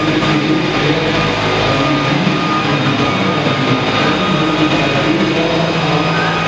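Large radio-controlled CH-47 Chinook scale model helicopter hovering close to the floor with both tandem rotors turning: a steady, even drone of rotors, motors and gearing, with several whining tones held at one pitch.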